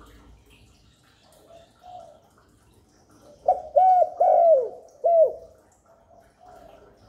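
Spotted dove cooing: a loud phrase of several short coos, one of them falling in pitch, about halfway through, with softer coos before and after.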